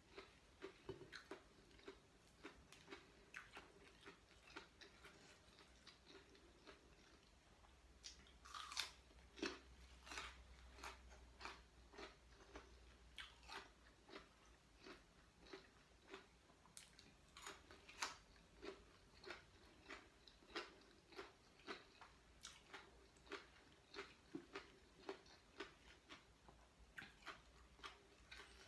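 A person chewing raw radish: faint, crisp crunches about once or twice a second, a little louder about nine seconds in.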